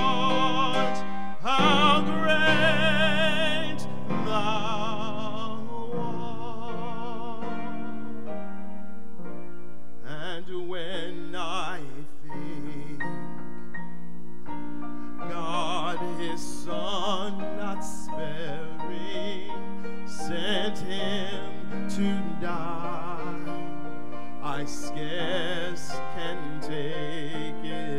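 A man's operatic-style singing voice holds a final note with wide vibrato for the first few seconds. An instrumental interlude of sustained chords follows.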